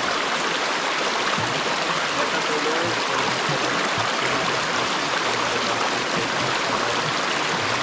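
River water flowing with a steady, even rushing.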